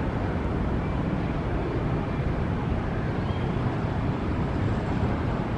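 Airbus A321-211's twin CFM56 jet engines at takeoff thrust, a steady rumble as the airliner accelerates down the runway on its takeoff roll.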